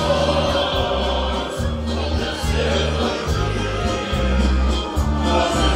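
Live music: a band playing with many voices singing together over deep, sustained bass notes that change every second or so.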